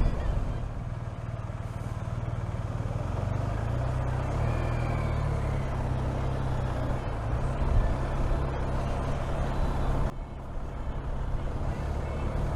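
Motorcycle engine running steadily at low speed, its note rising slightly about four seconds in and dropping off suddenly about ten seconds in.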